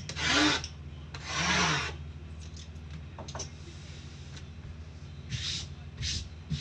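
Boxes of trading cards sliding out of a snug cardboard case, rubbing against the case and each other. There are two long swishes, a few light knocks, then two shorter swishes near the end.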